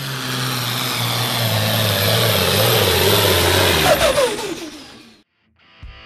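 A Limited Pro Stock pulling tractor's 466-cubic-inch diesel engine running loud under full load as it drags the sled. About four seconds in the engine pitch falls away and the sound fades out. Music with electric guitar starts near the end.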